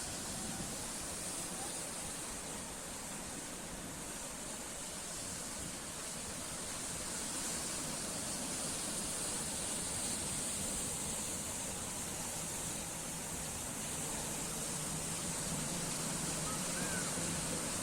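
Sea waves breaking and washing ashore: a steady rush of surf.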